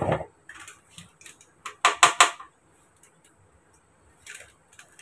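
A steel spoon clinking and tapping against a plate and spice containers as spices are measured out. A dull knock at the start, then a quick run of three or four sharp clinks about two seconds in, and a few lighter taps near the end.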